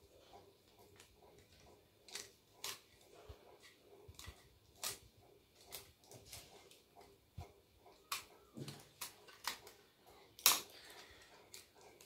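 Paper and tape being handled and pressed down by hand: scattered faint crinkles and clicks, with one sharper click near the end.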